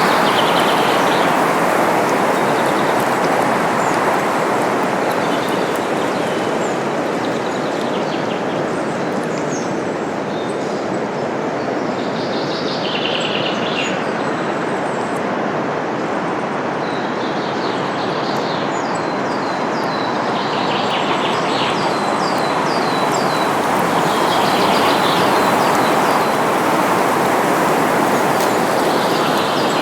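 Wind rustling through forest leaves in a steady wash that swells and eases, with small songbirds chirping over it. Past the middle, one bird gives a quick run of repeated down-slurred notes.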